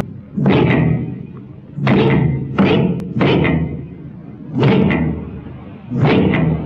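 Heavy thumps in a slow, uneven rhythm, about six in all, some coming in quick pairs or threes. Each has a short ringing tail, and they sit over a low steady hum.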